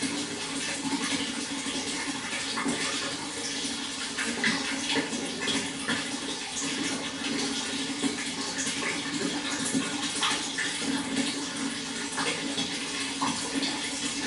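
Water flowing steadily, with many small splashes.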